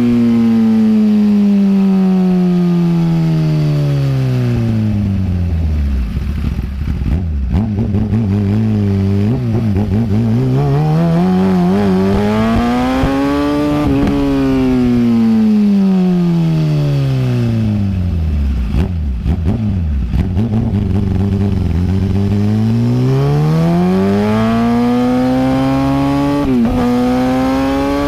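Kawasaki Ninja ZX-10R inline-four engine revving, its pitch sinking slowly to a low idle-like note and climbing back up in long, smooth sweeps of several seconds each, twice over, with a brief dip near the end.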